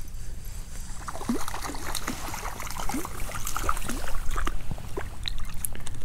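A hooked stocker trout splashing at the surface as it is reeled in and swung onto the bank: a quick, irregular run of splashes and plops starting about a second in.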